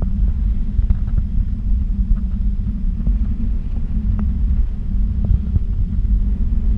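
Wind buffeting an action camera's microphone on a parasail harness in flight: a steady, loud, low noise, with a few faint ticks.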